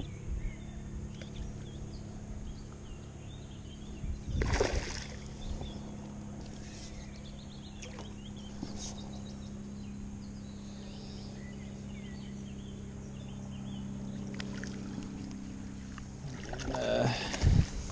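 Water splashing from a hooked fish being played on a pole and drawn into a landing net, against a steady low hum. There is a short splash about four and a half seconds in and a heavier one near the end as the fish is netted.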